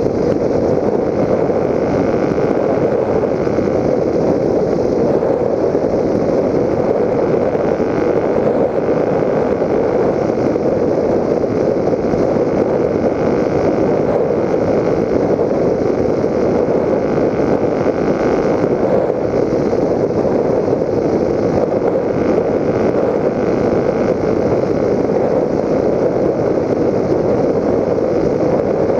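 Steady, unbroken rushing drone of a Raptor 1600 FPV electric model plane in flight, picked up by its onboard GoPro Hero 3: airflow over the airframe mixed with the electric motor and propeller, holding one even level throughout.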